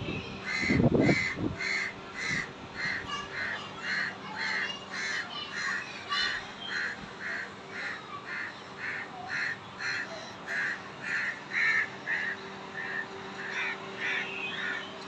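A bird calling over and over, about two calls a second, with some calls louder than others. A low rumble of wind on the microphone comes in the first second or so, and a faint steady hum sits underneath.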